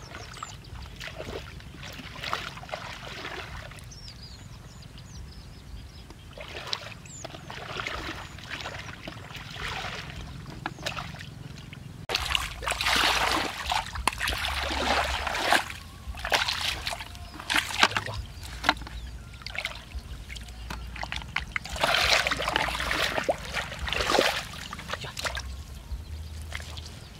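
Shallow muddy water splashing and sloshing as a person wades through it and works his hands in it, in irregular bursts with sharp splashy clicks. It is loudest about halfway through and again a few seconds before the end.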